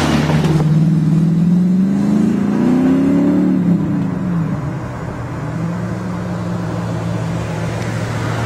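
Engine sound effect from a coin-operated kiddie motorcycle ride's speaker: it revs up, rising in pitch for a couple of seconds, drops back about four seconds in, then settles into a steady lower idle drone.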